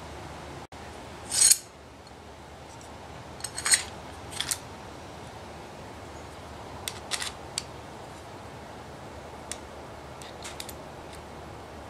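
Small metal parts clinking and scraping as they are picked up off a steel anvil and fitted to a knife: a few sharp clinks, the loudest a short scrape about a second and a half in, then lighter taps scattered through the rest.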